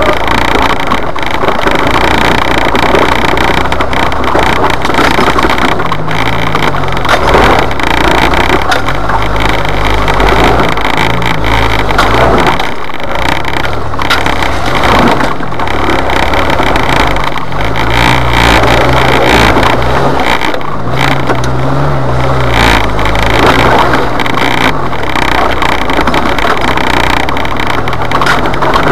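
Jeep Wrangler engine pulling up a rough dirt trail, its pitch rising and falling with the throttle, heard from inside the cab over steady noise and knocks from the bumpy ground.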